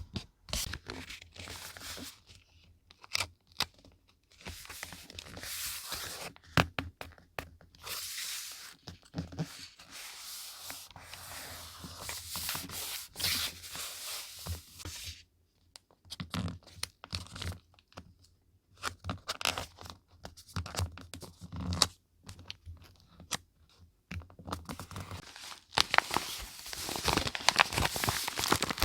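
Paper being torn and handled in short strokes, broken by pauses, with a few sharp clicks along the way.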